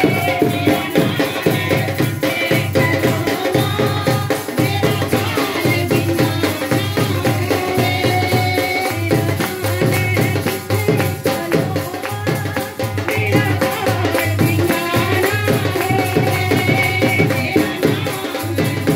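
Live Punjabi devotional folk music: women singing a bhajan into microphones, amplified, over a steady beat of drum and rattling, jingling hand percussion.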